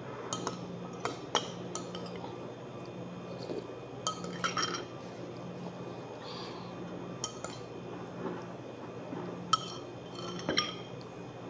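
Metal spoon clinking and scraping against a ceramic bowl as the last of a bowl of noodle soup is scooped up: about ten sharp, scattered clinks, with a short cluster about four and a half seconds in, over a faint steady hum.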